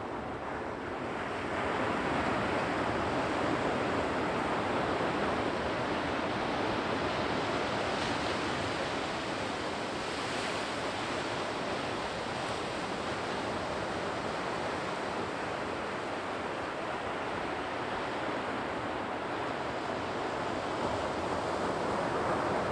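Sea waves breaking and washing up the shore as a continuous surf noise. It swells as a wave breaks about a second and a half in, eases off slowly, and builds again near the end.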